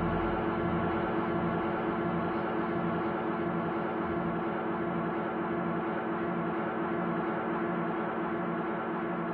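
Sustained ambient drone music, many held gong-like tones sounding together without a beat; its deepest notes fade away in the first second or two.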